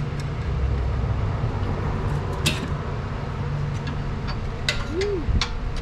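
A few sharp clicks and knocks of parts and tools being handled during disassembly, one about midway and two near the end, over a steady low hum.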